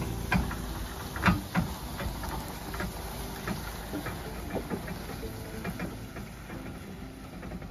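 A bundle of long wooden poles towed by a Jeep Wrangler drags over dry dirt, knocking and clattering, loudest about a second in. A low engine rumble runs underneath, and the sound slowly fades as the Jeep pulls away.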